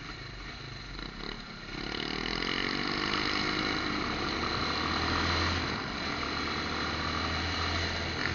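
Motorcycle engine running while riding, with road and wind noise. It gets louder and climbs in pitch about two seconds in as the bike speeds up, then holds steady.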